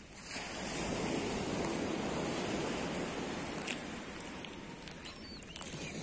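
Sea surf washing onto a sandy beach: a steady rush of noise that swells up just after the start and eases slightly in the second half.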